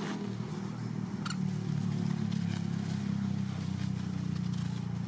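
A motor engine running steadily with a low hum that grows a little louder about a second in.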